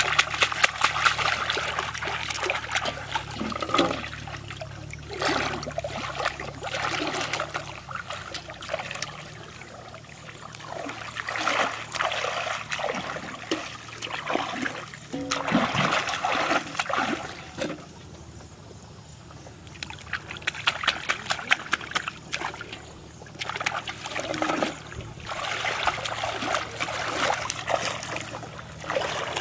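Shallow flood water splashing and trickling as a plastic bottle trap is dunked and handled in it, in bursts of a few seconds separated by quieter gaps.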